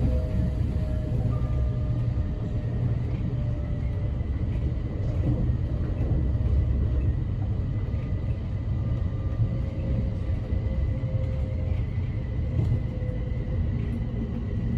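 Class 707 electric train running, heard from inside: a steady low rumble with faint, thin whistling tones held over it, the weird noise that sounded like wind blowing through the doors.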